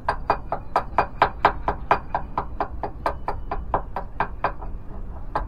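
Chipping hammer striking the rusty steel plating of a ship's hull, knocking off rust and paint down to bare iron. Quick, even strikes, about four to five a second, that stop about a second before the end.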